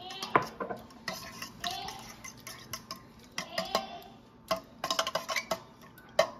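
A metal fork stirring a buttermilk marinade in a stainless steel bowl, its tines clicking and scraping against the bowl in quick runs of clicks. There is a loud knock about a third of a second in and another near the end.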